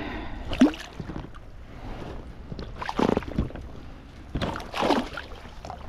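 Small boat being rowed: a few oar strokes swishing through the water, a second or two apart, over a low steady wash of wind and water.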